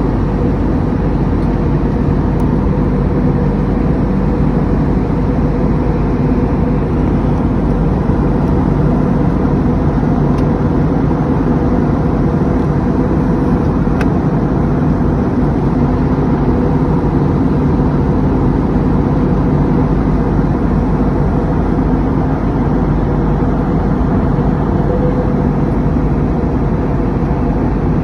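Steady engine and airflow noise heard inside an airliner's cabin in flight, an even rushing with a low steady hum under it.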